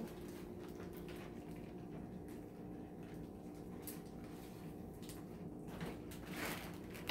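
Faint, steady hum of a running appliance, with a few soft clicks and rustles now and then and a slightly louder rustle about six seconds in.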